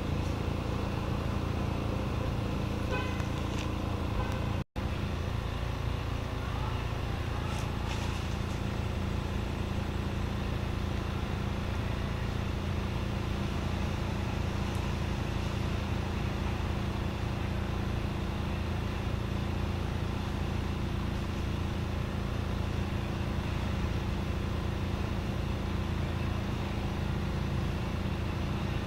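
Steady low rumbling hum with a brief cutout about five seconds in.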